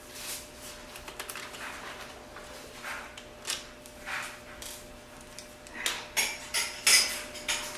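Small screwdriver working screws out of a laptop screen bezel, with light scattered clicks and scrapes and a quick run of louder clicks and taps in the last two seconds.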